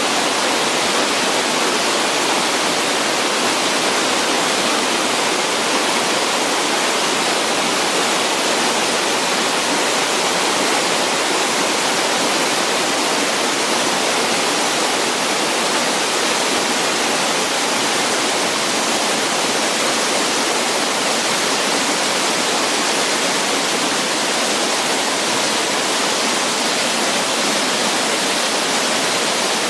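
Ōnametaki, a slide waterfall, its water rushing over the rock in a steady, unbroken roar.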